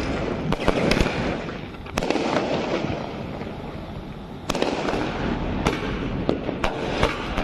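Diwali fireworks and firecrackers going off: many sharp bangs and cracks, near and far, over a continuous hiss. The noise steps up louder about halfway through.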